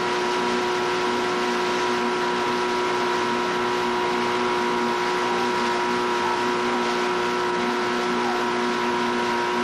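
Outboard motor of a launch running at a steady cruising speed: a constant drone with several fixed tones over a hiss.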